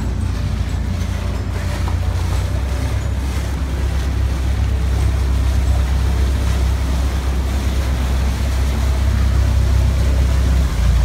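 Engine of a passenger boat underway, a steady low rumble under the rush of water and wind on the microphone, slowly growing louder.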